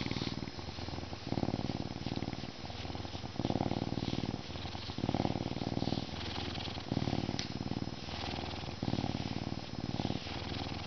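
A lynx purring with a deep, rumbling purr while its head is rubbed. The purr swells and eases in turn, about once a second.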